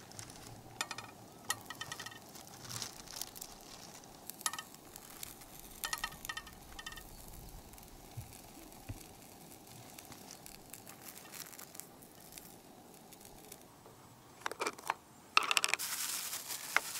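Scattered light clinks and taps, some with a brief ringing note, like small hard objects being handled. Near the end come louder bursts of rustling.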